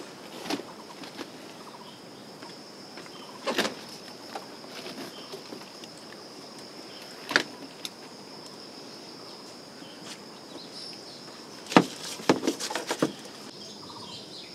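A stiff brush scrubbing the knobbly rind of whole jackfruits in short scratchy strokes, with the fruits knocking as they are shifted; a quick run of strokes near the end is the loudest. A steady high thin whine runs underneath.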